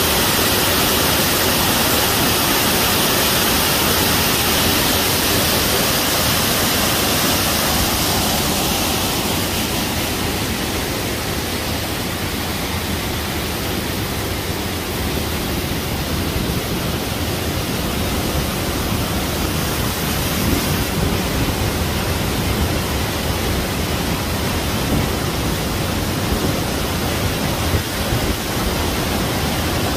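Rushing water of a mountain waterfall and the rocky stream below it, a steady hiss. It is brightest for the first several seconds, dulls about nine seconds in, and grows a little louder again in the second half.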